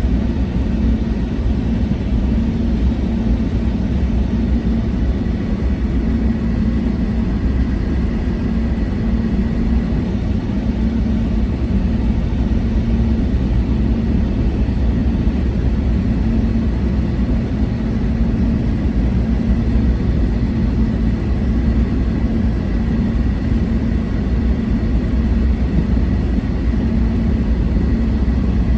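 A car being driven, heard from inside the cabin: a steady low rumble of engine and tyre noise, with a faint constant high tone over it.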